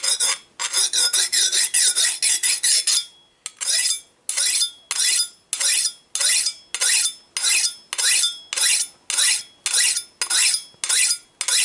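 Steel file rasping along the edge of a kitchen knife to sharpen it, on the blade's second side. A quick run of short strokes is followed by a steady rhythm of about two long strokes a second, each with a faint metallic ring.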